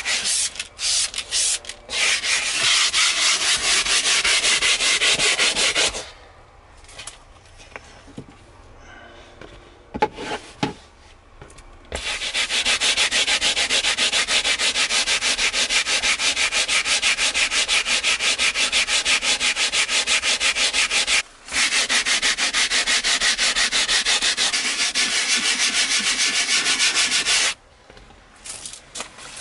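Scrubbing brush worked rapidly back and forth over a wet, soapy leather car seat: a steady fast scratching rub. It stops for several seconds about a third of the way in, with a few clicks during the pause, then resumes, broken off for a moment near the three-quarter mark.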